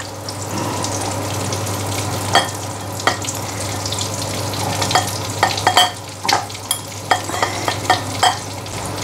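Breadcrumb-coated chicken wings frying in hot oil with a steady sizzle. Sharp clicks of a utensil against the pan come every so often, most of them in the second half.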